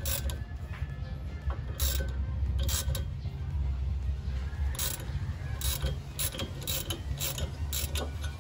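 Hand ratchet clicking in short, irregular runs as a bolt is wound into the brake rotor's threaded jack hole to press the rusted rotor off the hub, over a steady low hum.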